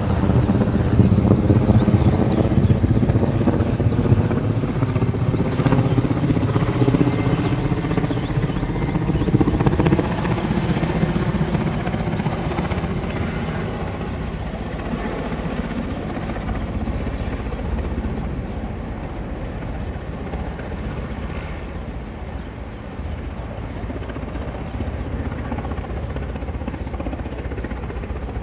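Firefighting helicopter with a water bucket slung beneath it flying overhead: the steady beat of its rotor and engine, loudest at first, then slowly fading as it moves away.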